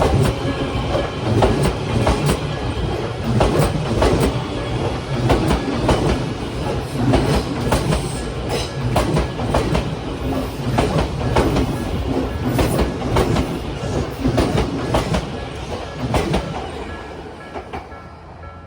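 A long electric train passing close by, its wheels clattering over the rail joints in a steady run of knocks, fading away over the last few seconds.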